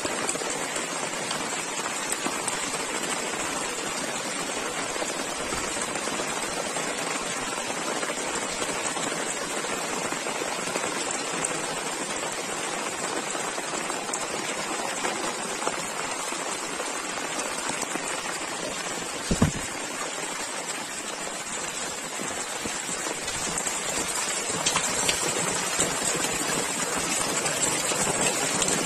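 Steady hiss of rain and muddy floodwater running over paving and into a drain channel, a little louder near the end as the water rushes through the channel. A single brief low thump about two-thirds of the way through.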